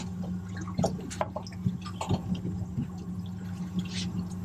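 Water lapping and dripping against a drifting boat's hull, in short irregular splashes, over a steady low hum.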